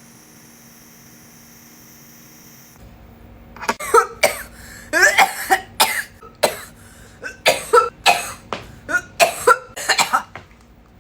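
A person's long, hard coughing fit of about fifteen to twenty rapid coughs, starting about four seconds in, brought on by a big vape hit (a 'blinker').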